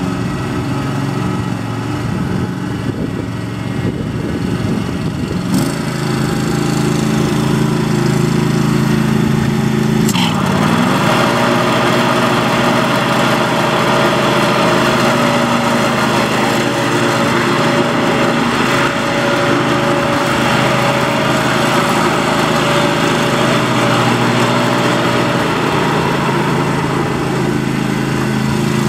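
John Deere SST18 riding mower's 18-horsepower V-twin engine running while the mower is driven. Its pitch dips briefly about ten seconds in, and it runs louder after that.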